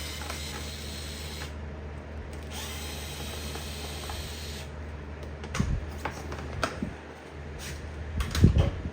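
Power drill running in two bursts of about two seconds each, backing out the side-panel screws of an electric bike, then a few knocks and a louder thump near the end as parts are handled.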